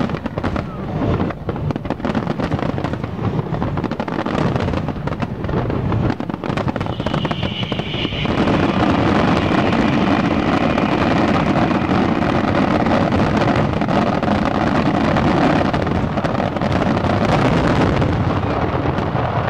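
Aerial fireworks shells bursting in quick succession. About eight seconds in they build into a louder, dense, almost continuous barrage of bangs for the finale.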